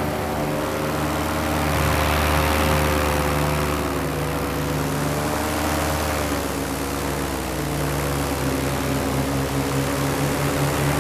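Paramotor engine and propeller running steadily in flight, the pitch wavering a little as the throttle is eased up and down.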